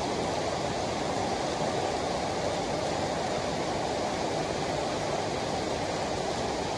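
Heavy rain pouring steadily onto pavement and leaves, an even, unbroken hiss.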